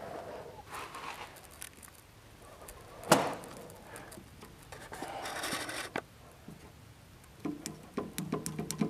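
A finger presses the push-button on a stainless-steel call box, with handling clicks and one sharp knock about three seconds in. A short hiss follows, and near the end a low buzzing hum with rapid clicking starts up.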